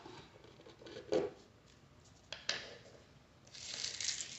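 Flat-pack furniture parts being handled: a soft knock about a second in and a light click a little later as a white laminated panel and a small plastic fitting are moved on a wooden floor, then a scratchy rustle starting near the end.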